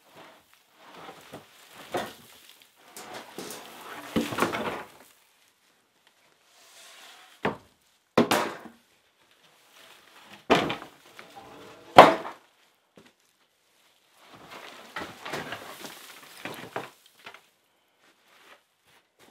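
Wood and debris being moved by hand and dropped: stretches of scraping and rustling, and four sharp knocks in the middle, the last the loudest.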